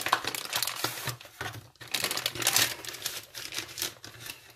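MRE plastic and foil packaging crinkling and rustling as it is handled, in irregular bursts.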